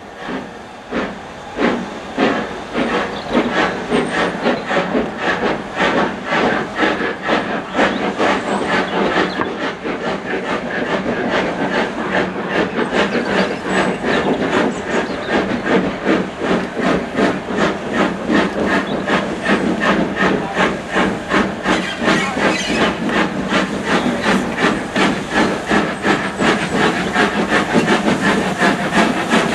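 Two steam locomotives double-heading a train, the leader a Midland Railway 3835 Class (4F) 0-6-0, No. 43924, working under steam with a fast, steady rhythm of chimney exhaust beats and a hiss of steam, growing louder as the train approaches.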